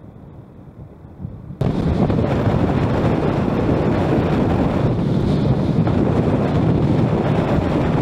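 Quiet, low road rumble, then about a second and a half in a sudden jump to loud, steady wind rushing over the microphone with road noise underneath, from riding at highway speed.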